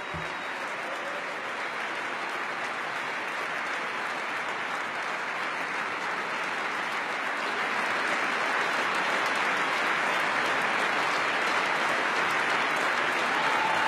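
Large audience giving a standing ovation: dense, sustained applause that swells louder about halfway through.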